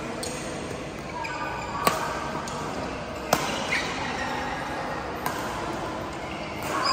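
Badminton rally: three sharp racket hits on a shuttlecock, about a second and a half to two seconds apart, the middle one the loudest, over the murmur of voices and play from other courts in a large hall.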